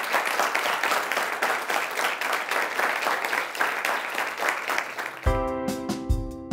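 A roomful of students applauding, dense steady clapping. About five seconds in, the applause gives way to instrumental music with held notes over a low, regular beat.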